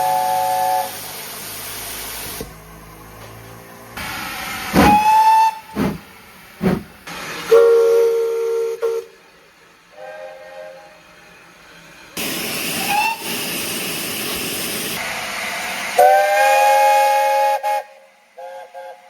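Steam locomotive whistles, about six separate blasts of different pitches, each with several notes sounding at once. Some slide up in pitch as they open, and steam hisses between them.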